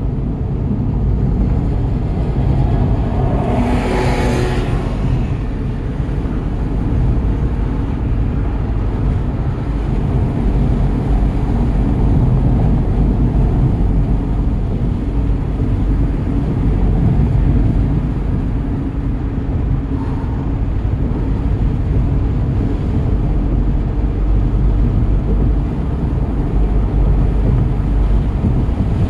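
Mk7 Volkswagen GTI's turbocharged 2.0-litre four-cylinder, on an 034Motorsport Stage 2 tune, running hard around a race track, under heavy low road and wind noise. There is a brief hiss about four seconds in.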